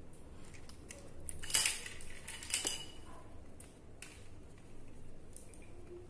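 Light clicks and clinks of hands working wires and small hand tools on a plastic 15 A wall socket. A louder clatter comes about a second and a half in, and another about two and a half seconds in.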